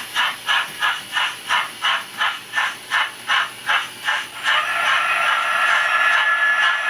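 Model locomotive sound decoder playing a running sound in an even beat of about three strokes a second, then, about four and a half seconds in, a steady high brake squeal as the train stops, triggered through a locomotive function switch.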